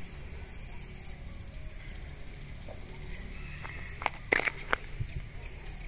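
Insects singing in a steady, high, pulsing chorus over a low rumble, with a few short clicks about four seconds in.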